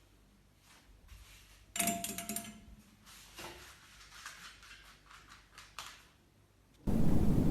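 Faint clicks and light knocks in a small room, with a brief louder rustling knock about two seconds in. Near the end a loud, steady, low rushing noise starts abruptly.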